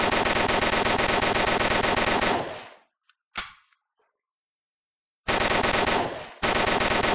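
MAT-49 9mm submachine gun firing on full automatic: a sustained burst that stops about two and a half seconds in, one short sharp report a second later, then after a pause a short burst at about five seconds and another sustained burst beginning at about six and a half seconds.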